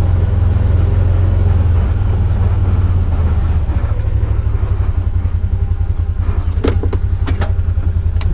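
Vehicle engine idling with a steady low drone and an even pulse, with a few clicks near the end, then cutting off suddenly as it is switched off.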